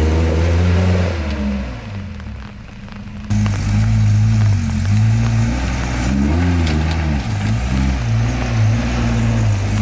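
Off-road truck engine working on a trail, its revs rising and falling as the throttle is worked. It fades out about a second and a half in and comes back abruptly a little after three seconds.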